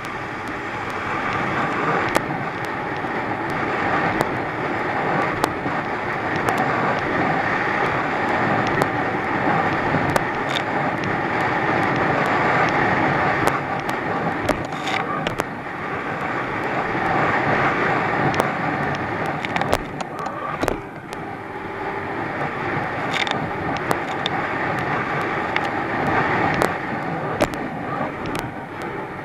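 Thundercat inflatable racing boat running fast through swell: its outboard engine's steady drone under rushing wind and water, with many sharp knocks and splashes as the hull slams into the waves.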